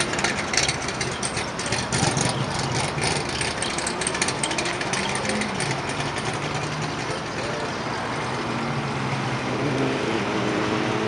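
Engines of classic cars running as they pull away one after another, with crackly noise over the first few seconds, low engine tones that rise and fall in the middle, and a steadier, higher engine note coming in near the end.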